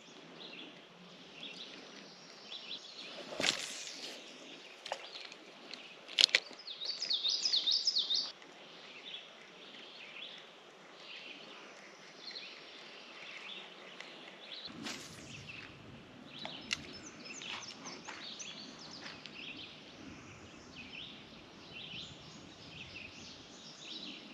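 Songbirds chirping and calling all around, with two sharp clicks in the first quarter and then a louder run of quick, repeated chirps. From about midway a low rushing noise joins in underneath.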